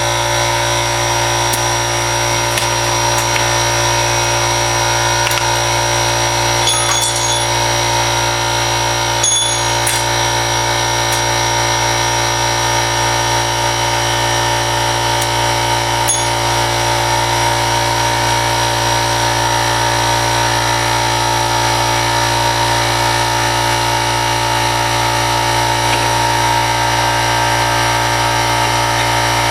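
A machine running steadily with an unchanging hum, and a few light metallic clinks about seven, nine and sixteen seconds in.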